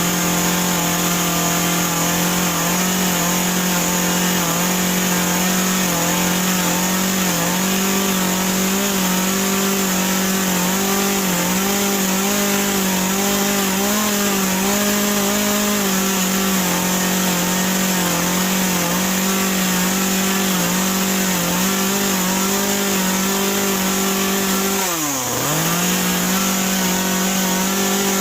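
Two-stroke chainsaw running at high throttle while cutting wood, its pitch sagging slightly now and then under load. About 25 seconds in it drops briefly and revs straight back up.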